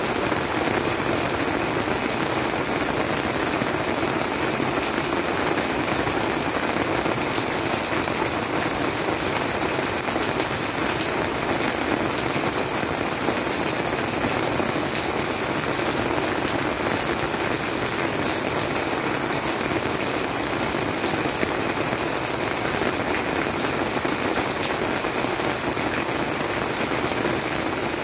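Steady monsoon-season rain falling, an even hiss with a few sharper drop ticks.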